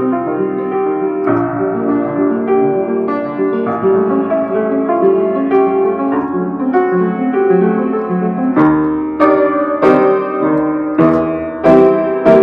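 Solo piano playing a flowing melody with running notes in the accompaniment. From about two-thirds of the way in, the notes are struck harder and louder.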